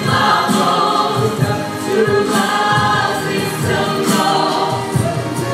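Mixed choir of women's and men's voices singing into microphones through a PA, with a pulsing low part under the chords.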